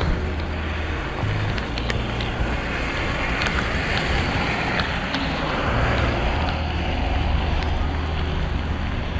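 Wind rumbling on the camera's microphone while riding a road bike on a wet road. A hiss of tyres on the wet surface swells for a few seconds in the middle.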